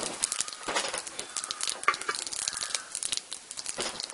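Whole spices (cumin, fennel, cinnamon and cloves) sizzling and crackling in hot oil in a clay pot, with many irregular sharp pops: the spices being tempered at the start of a gravy.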